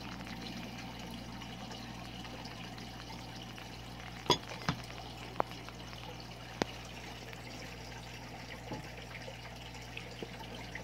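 Steady background noise like running or trickling water, with a low hum under it. A few sharp clicks stand out, two close together about four seconds in and two more over the next two seconds.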